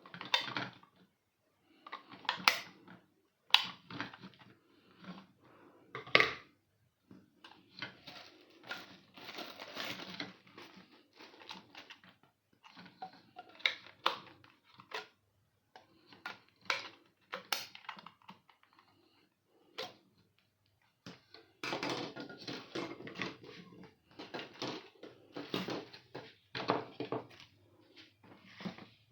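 Irregular handling noises from unpacking: sharp clicks and knocks of hard plastic parts, with bursts of rustling packaging.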